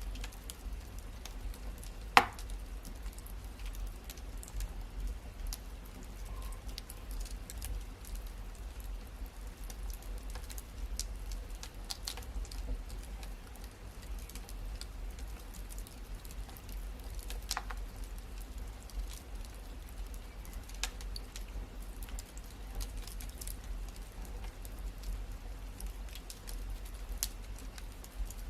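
Wood fire crackling, with scattered sharp pops, the loudest about two seconds in, over a steady low rumble.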